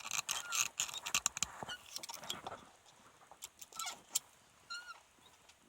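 2011 Kia Cerato Koup driver's seat squeaking and creaking as someone shifts their weight on it: rapid clicks and short, high squeaks, busiest in the first couple of seconds and then sparser. The squeak is still there after the seat mechanism was lubricated.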